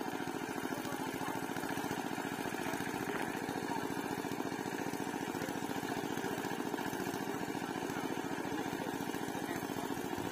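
A small engine running steadily at an even speed, with no change in pitch or level.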